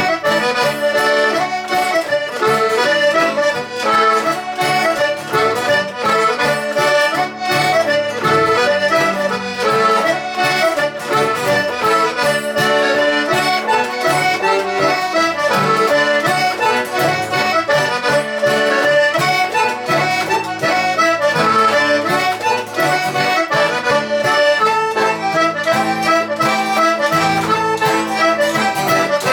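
Traditional Hebridean tune played on the accordion, dense running notes over a steady beat.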